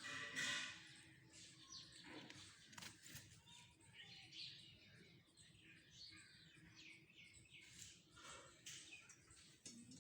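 Birds chirping faintly, a run of short high calls throughout, with one louder call at the very start.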